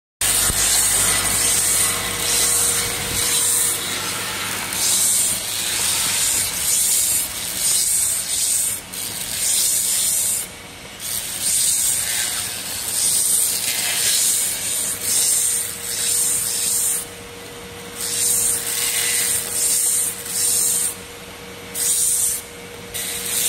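Mosquito-repellent wick making machine running: a steady motor whine under a hissing, rasping noise that comes in uneven surges every second or two, with brief dips between them. A low hum at the start stops about three seconds in.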